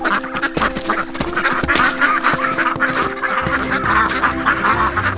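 A flock of domestic ducks quacking and chattering together, over steady background music.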